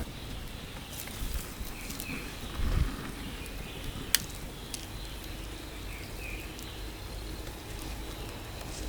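Steady low background noise with two faint short chirps, a low thump just under three seconds in and a single sharp click about four seconds in.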